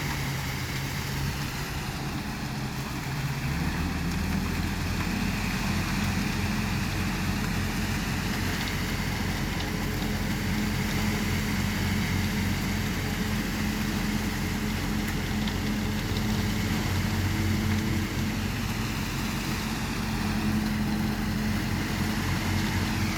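Engine of working machinery running steadily, a little louder from about three and a half seconds in.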